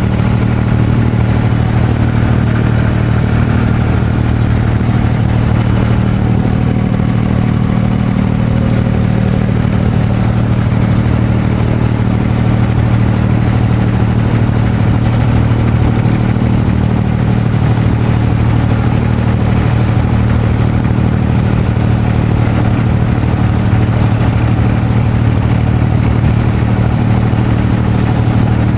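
A small boat's engine running steadily while underway: an even, low drone that does not change, over the wash of the water.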